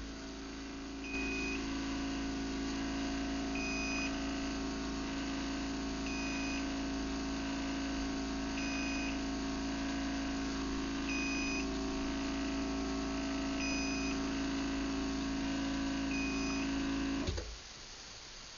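Craftsman belt-drive garage door opener running a closing cycle on battery backup. Its motor gives a steady hum that starts about a second in and stops suddenly near the end. A short high beep sounds about every two and a half seconds throughout, the warning that the opener is running on battery power.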